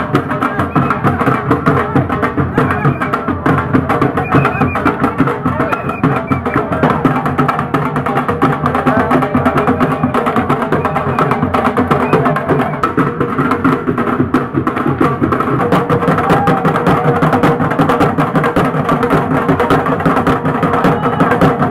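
Group of barrel drums slung from the players' shoulders beaten in a fast, continuous rhythm, with crowd voices underneath.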